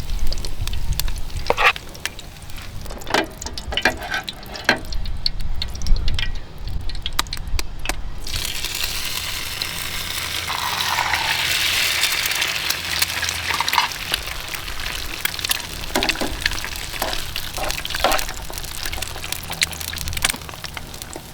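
Food frying with a hiss that starts suddenly about eight seconds in, after a run of scattered clicks and knocks.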